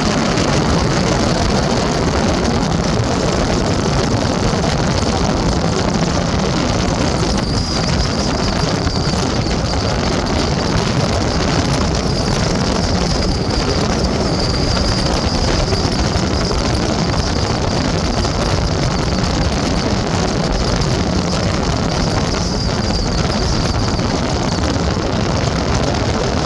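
A vehicle driving along at a steady pace: even road and engine noise with no change throughout.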